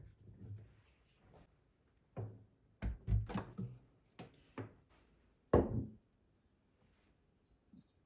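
A series of short knocks and thuds, like objects being handled and set down, loudest about five and a half seconds in.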